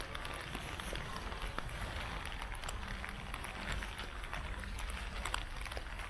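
Outdoor beach ambience: a steady rushing hiss with a low, uneven wind rumble on the microphone and scattered faint clicks.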